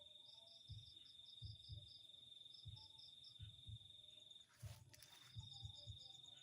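Faint night insects: a steady high trill with rows of quick cricket chirps above it, and soft irregular low thumps underneath. The trill breaks off briefly for a short burst of hiss a little after halfway.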